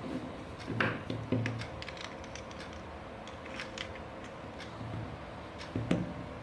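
Scattered light clicks and ticks of small hard objects being handled, with a few soft knocks about a second in and again near the end.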